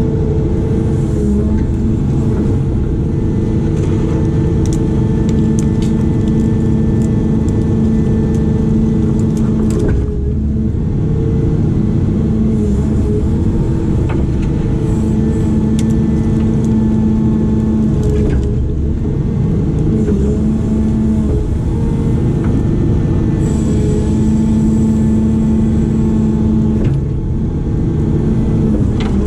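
A heavy construction machine's diesel engine running under load. It picks up revs and settles back several times as it works.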